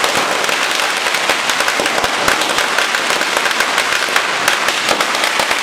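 Firecrackers going off in a rapid, unbroken crackle of many small bangs.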